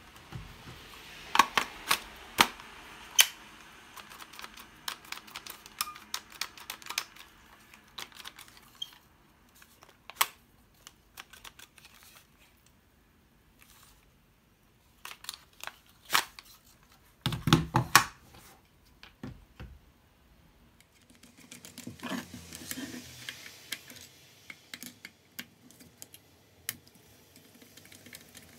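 Handling noises from an old Makita 6222D 9.6 V cordless drill driver: scattered clicks and knocks of its plastic housing and chuck as it is turned over in the hand, with a cluster of louder knocks and thuds a little past halfway.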